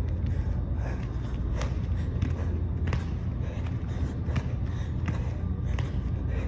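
A person exercising through a warmup routine: regular footfalls or thuds, about one every 0.7 s, with heavy breathing, over a steady low hum.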